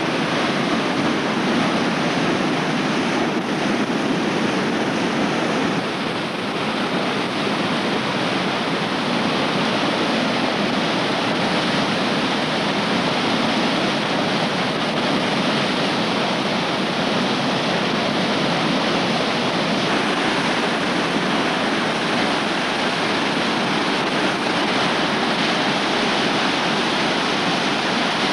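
Whitewater of a river rapid rushing and churning over rocks: a steady, full noise of moving water with no let-up.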